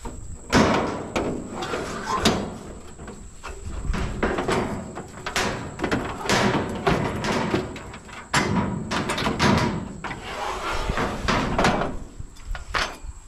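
Scrap steel clanking and scraping as a heavy steel plate and lengths of pipe are handled and shoved into a pickup bed already loaded with scrap metal. A string of sharp metal knocks and rattles, loudest about half a second in, around two seconds and just past eight seconds.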